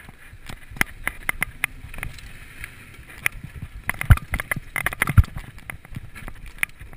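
Downhill mountain bike descending a rough dirt trail: the chain and frame rattle with irregular sharp knocks as it hits bumps, over a steady rush of tyres on loose dirt and wind. Two heavy knocks come about four and five seconds in.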